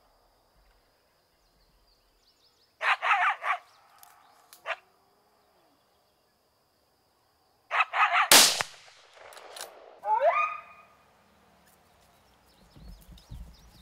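Coyote barking in short bursts, then a single loud gunshot with a ringing tail about eight seconds in, followed by a rising yelp.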